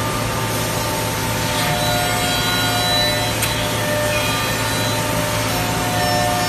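Changfeng CF-MASTERT2-28 five-axis CNC router milling a wooden workpiece: the spindle's cutter running steadily through the wood, a constant cutting noise over a low hum with a few steady tones.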